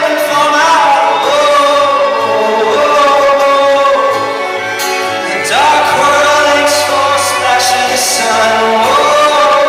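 Live pop song performance: a male voice singing long held notes over instrumental accompaniment, swinging up to a higher note a little past halfway.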